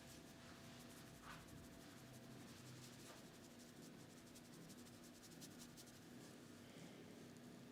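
Faint scratching and rubbing of fingers working over the scalp and hair during a head massage, in quick, irregular strokes over a low steady hum.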